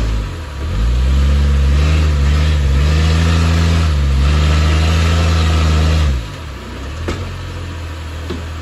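Jeep Wrangler YJ's engine revving up and held under load as it crawls over a rock ledge, then dropping back to idle about six seconds in. A couple of faint sharp knocks follow near the end.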